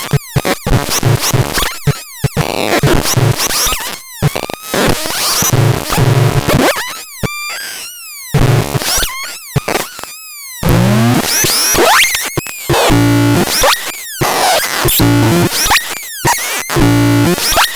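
ABSURDON X1 Bax Box electronic noise box being played: glitchy, chaotic electronic noise with rapid falling chirps, stuttering low bass tones and sudden cut-offs.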